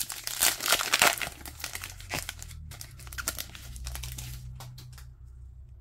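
Foil trading-card pack wrapper being torn open and crinkled, densest in the first two seconds, then a few lighter crinkles and rustles as the cards come out.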